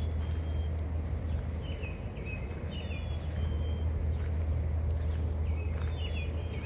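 Small birds chirping, short high calls that come a few times: about two and three seconds in and again near the end. Under them runs a steady low rumble.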